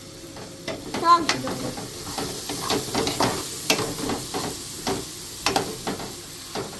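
A utensil stirring and scraping in a pan of frying food: irregular short clatters over a steady sizzle.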